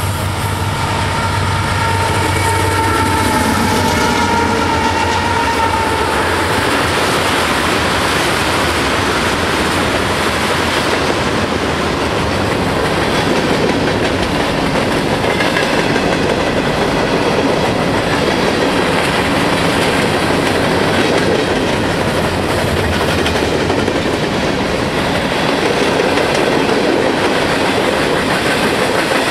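CSX diesel freight locomotives pass close by in the first several seconds, with a horn note trailing off. Then a long string of freight cars (covered hoppers, then tank cars) rolls by with steady wheel and rail noise.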